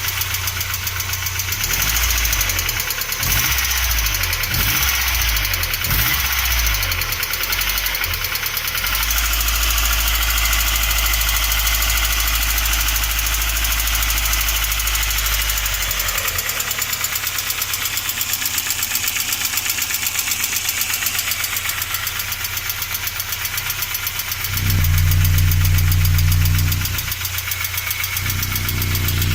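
ZMZ-409 inline-four petrol engine running with two knocks: a fast, bright ticking that the owner takes for a hydraulic valve lifter, and a dull, quiet knock that he hears around the timing chain. A deeper, louder hum comes in for a couple of seconds near the end.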